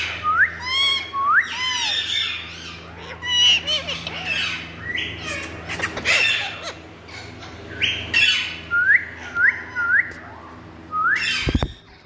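Indian ringneck parakeets calling: short, sharply rising squawks and chirps, many in quick succession, with a quick run of three near the end.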